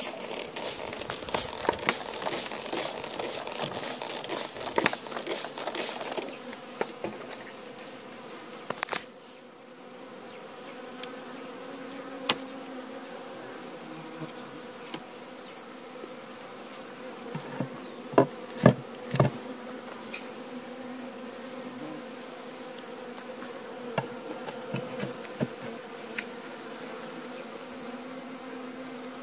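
Honeybee colony humming steadily in an open hive. Crackling and rustling over the first six seconds, then a few sharp knocks, the loudest three together about eighteen to nineteen seconds in.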